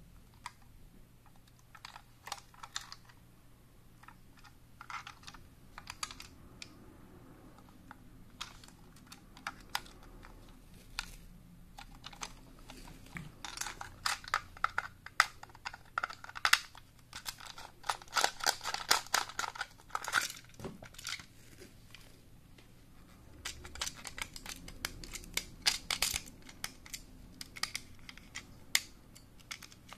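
Plastic Plarail toy train car and chassis being handled: scattered sharp plastic clicks and taps, coming thick and fast in a burst around the middle and again in the latter part.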